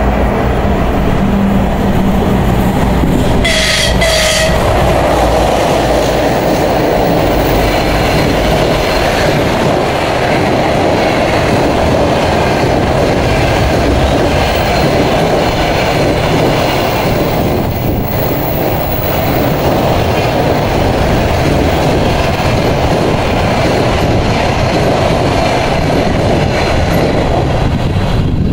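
A train passing close by, with a steady loud rumble of wheels on rail. About four seconds in it gives two short horn blasts.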